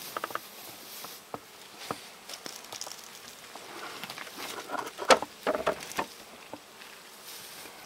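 Honeybees buzzing around open hives, with light clicks and several sharp wooden knocks as hive parts are handled, the loudest knock about five seconds in.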